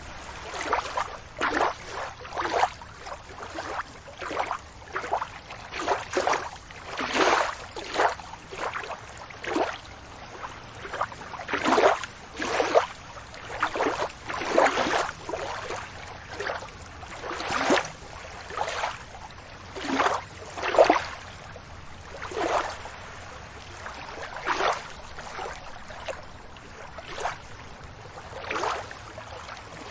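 Small ocean waves lapping and slapping, short irregular splashes roughly one a second over a faint steady wash of water.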